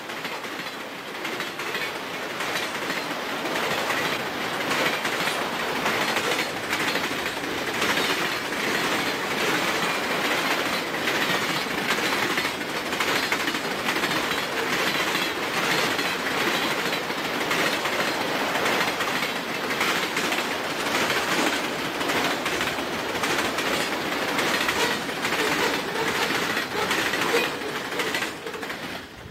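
Grand Trunk Western freight train's boxcars and autoracks rolling past at speed: a steady rumble and rattle with a rapid run of wheel clicks over the rails. The sound drops away quickly near the end as the last car goes by.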